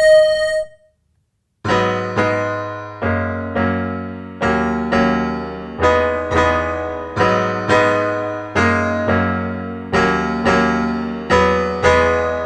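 Keyboard chords in an R&B style, struck in pairs about every 1.3 seconds, each chord ringing and fading. A steady held tone cuts off in the first second, followed by about a second of silence before the chords begin.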